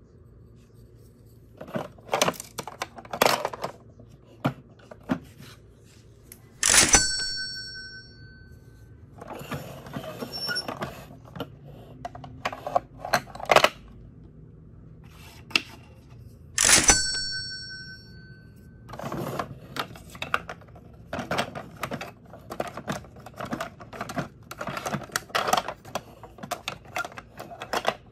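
Hard plastic shape blocks clicking, knocking and rattling against a plastic shape-sorter toy train as they are handled and pushed into its holes. Twice, about seven and seventeen seconds in, a loud knock is followed by a ringing tone that dies away in about a second and a half.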